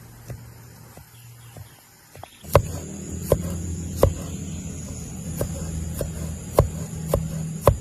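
Sharp knocks, roughly one every three quarters of a second, over a steady low hum that comes in about two and a half seconds in.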